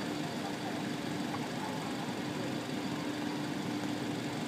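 Steady mechanical hum with one constant low tone under it, holding even throughout.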